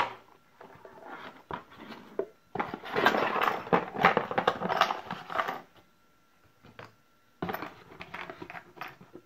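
Hands rummaging in a cardboard box, the cardboard and the items inside rustling and scraping in two spells, the longer one starting about two and a half seconds in and a shorter one near the end, with a sharp click at the very start.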